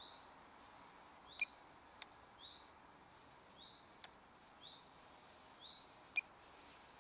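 A bird calling faintly, a short high chirp repeated about once a second, with a few small sharp clicks between them.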